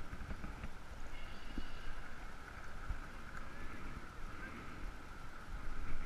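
Riverside outdoor ambience: a low rumble on the microphone and a steady high hum, with a brief pitched call of several tones about a second in.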